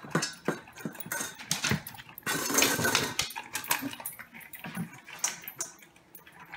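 A boxer eating kibble from a stainless steel bowl: irregular crunching and chomping with clinks against the metal bowl, and a denser stretch of noisy snuffling or scraping about two and a half seconds in.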